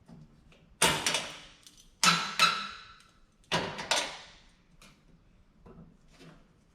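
Metal clanking against a welded steel frame: three loud pairs of ringing strikes about a second and a half apart, then a few faint knocks.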